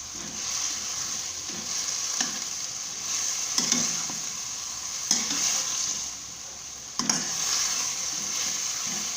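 A stir-fry of green beans, carrots, tofu and mushrooms sizzling steadily in a pan, with a spatula clacking and scraping against the pan a few times as it is stirred.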